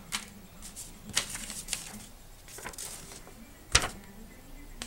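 A series of irregular sharp clicks and short rustles, like handling or tapping, with one louder click about three-quarters of the way through.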